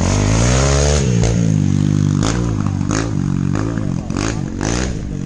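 Motorcycle engine revving hard on an off-road course, its pitch rising and falling over and over as the throttle is worked, with several sharp clacks in between.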